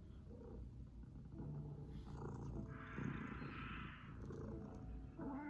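Domestic cat purring close by, a steady low rumble. A short hiss-like sound comes about three seconds in, and a brief pitched sound near the end.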